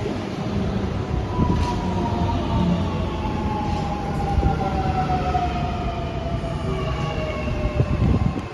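Electric suburban train pulling into the platform, its traction motors whining in tones that slowly fall in pitch as it brakes, over a low rumble of wheels on the rails.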